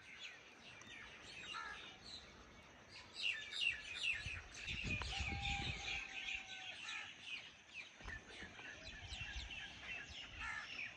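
Many small birds chirping and twittering together in quick, overlapping calls, busiest from about three seconds in, with a brief low rumble about five seconds in.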